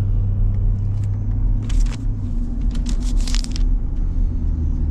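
Pickup truck driving, heard from inside the cab: a steady low rumble of engine and road noise. A few short scratchy noises come in the middle.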